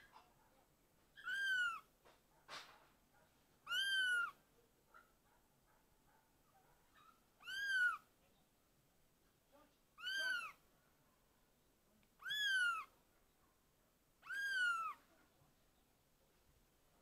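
A kitten meowing: six high, arching meows, one every two to three seconds.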